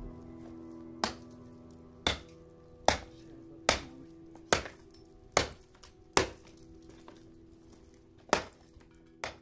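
A series of sharp chopping knocks, about one a second with a short pause before the last two, over soft held music tones.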